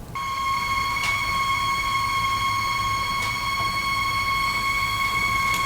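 Household water plumbing squealing: one steady high-pitched whistle that holds without change while a faucet runs. A noise of this type is most often caused by the pressure control valve.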